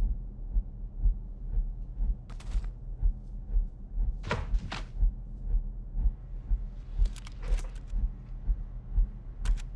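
Slow, steady heartbeat-like thump of a suspense score, a little more than one beat a second, over a low hum.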